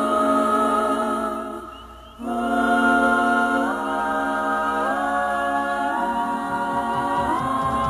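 Wordless a cappella singing by a few voices, holding sustained chords. The chords break off briefly about two seconds in, then move step by step to new chords.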